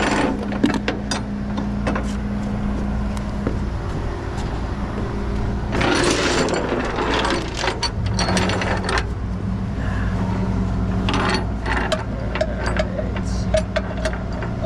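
Tow chains and hooks clinking and rattling in several spells as they are hooked under a car's bumper, over the steady hum of the tow truck's running engine.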